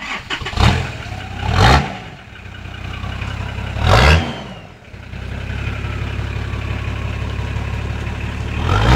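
Nissan Patrol's turbocharged engine idling, revved in four short blips, with a faint whistle falling away after the third.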